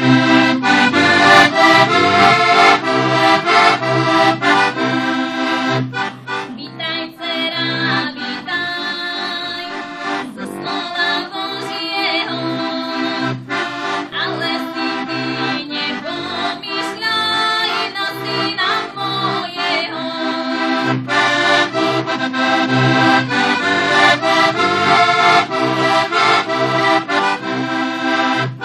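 Heligonka (Slovak diatonic button accordion) playing a traditional folk tune: a melody over regular oom-pah bass notes. It plays softer for a stretch in the middle, then full again.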